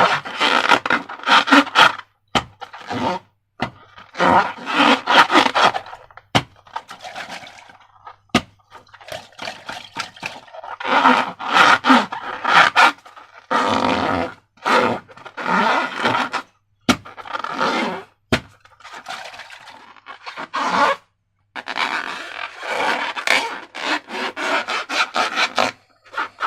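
Slime being squished and worked by hand: sticky, squelching scraping in bursts of one to two seconds, with short gaps and sharp clicks and pops between.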